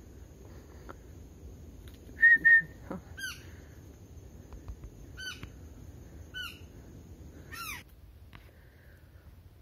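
A bird calling in the forest canopy: four short calls, each falling steeply in pitch, spaced one to two seconds apart. They follow two short, loud, high whistled notes about two seconds in.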